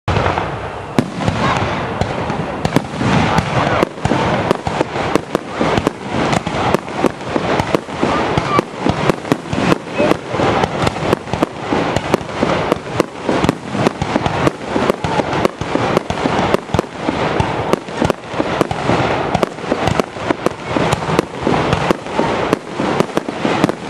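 Aerial fireworks shells bursting overhead in rapid succession, heard from close beneath the bursts: several sharp bangs a second over a steady wash of noise.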